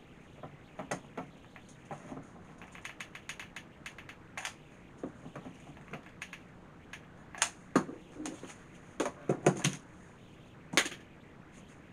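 Irregular small clicks and taps from handling a hot glue gun and the small wooden and plastic parts of a craft tree, with a few louder knocks in the second half.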